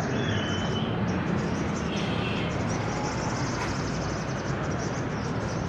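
Caged songbirds at a singing contest, a sogon among them, giving rapid high chirps and short whistled notes over a steady din of crowd and background noise.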